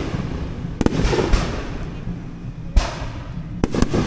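Aerial firework shells bursting: several sharp bangs at uneven intervals, each trailing off into an echo.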